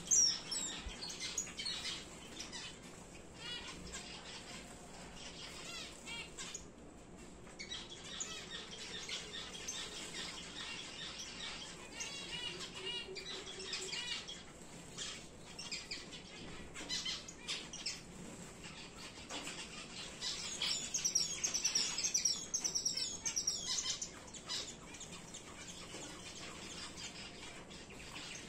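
Star finches calling with many short high chirps, with brief wing flutters as they fly about the cage. A sharp loud call comes right at the start, and the calls grow busier and louder about twenty seconds in.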